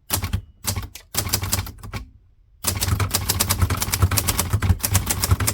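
Hermes 3000 portable manual typewriter being typed on, its type bars clacking: a few short bursts of keystrokes, a brief pause about two seconds in, then a fast continuous run of keystrokes.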